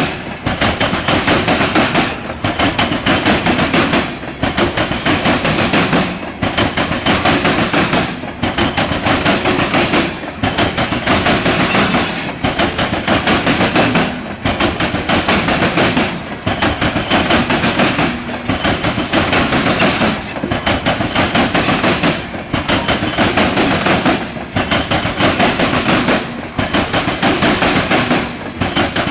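Norfolk Southern freight train cars rolling past close by, the wheels clattering and banging over the rails in a dense run of knocks, the level dipping briefly about every two seconds.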